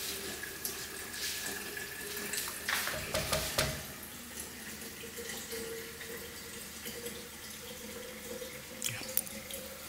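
Water boiling and bubbling steadily in a pot on a gas stove. A few sharp knocks about three seconds in, where the plastic spatula strikes the pot.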